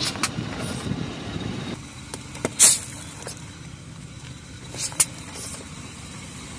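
Car tyre rolling over gravel and crushing a plastic toy figure: gritty crunching and several sharp plastic cracks, the loudest about two and a half seconds in, over the low rumble of the car.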